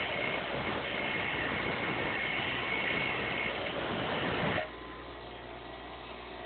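Electric grinder grinding steel lock-pick blanks: a steady grinding hiss with a high whine in it. About four and a half seconds in, the grinding stops suddenly, leaving a quieter steady motor hum.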